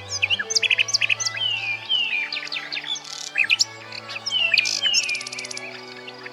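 Common nightingale singing in rapid, varied phrases of sharp notes and descending whistles, with a fast rattling trill about five seconds in. Under the song run low sustained chords of background music.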